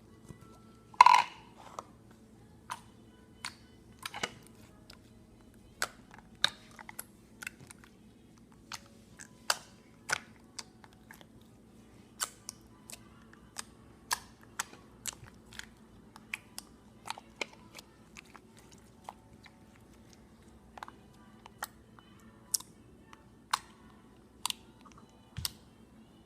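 Slime being squished and played with, giving irregular sharp clicks and pops about once a second over a faint steady hum.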